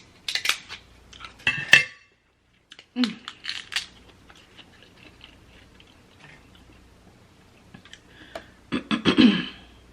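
Hard crab shell and utensils clicking and clattering at the table as king crab legs are handled and broken open, in three bursts of sharp clicks: at the start, about three seconds in, and loudest about nine seconds in.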